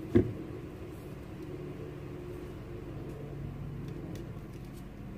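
One sharp knock just after the start, then a steady low rumble with a faint hum and a few small ticks.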